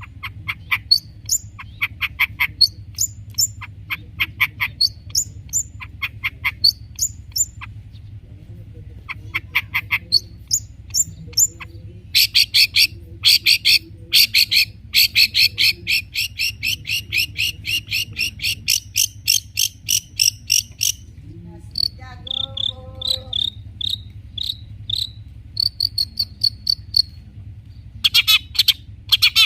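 Long-tailed shrike (cendet) singing a fast, varied song: rapid runs of sharp high chirps, a long fast trill through the middle, then short whistled notes. A faint low hum runs underneath.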